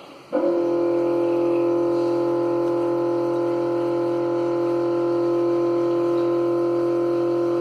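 Urinal water tap opened just a little, giving off a weird steady humming tone with several overtones, the sound of the partly open valve vibrating under the water flow. The tone drops out briefly at the start and sets in again a moment later, then holds steady.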